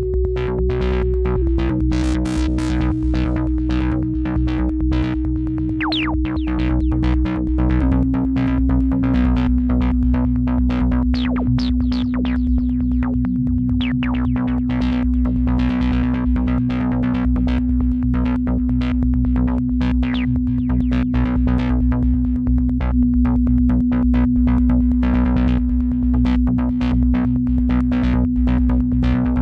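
Minimalist experimental techno played live on sampler and synthesizer. A held synth note steps down in pitch a few times in the first ten seconds over a steady deep bass, with dense clicking percussion.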